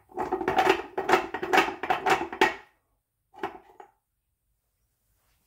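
Ratchet and homemade tool winding a threaded screw adjuster (carrier bearing holder) out of a Ford M86 diff housing: rhythmic metallic strokes with a ringing tone, about two a second, stopping about two and a half seconds in, then one short burst of the same sound about a second later.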